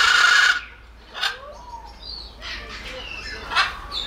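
Macaw squawking: a loud, harsh screech that breaks off about half a second in, followed by quieter, shorter squawks and chatter.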